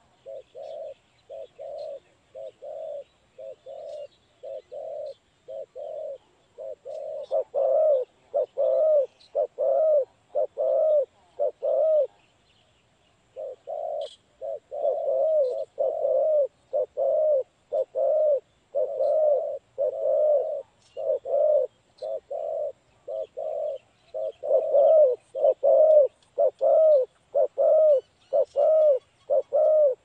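Spotted dove cooing: a long run of low, evenly spaced coos, about two a second, which grows louder about seven seconds in and breaks off once for a moment near the middle. Small birds chirp faintly in the background.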